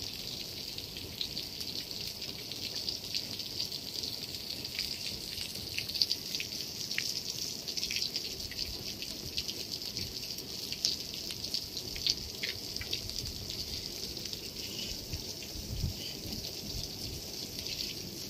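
Water spraying from a row of nozzles on a pipe along the top of solar panels: a steady hiss with scattered small drips and splashes on the wet glass.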